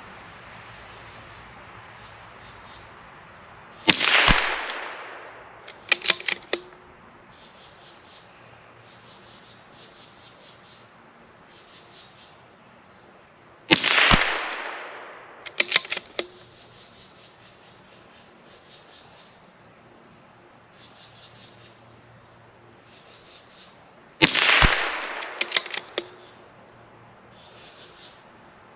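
Three shots from a bolt-action .22LR rifle firing supersonic high-velocity ammunition, about ten seconds apart. Each shot is followed about two seconds later by a quick run of clicks as the bolt is cycled to eject the case and chamber the next round. Insects keep up a steady high buzzing with pulsed chirping throughout.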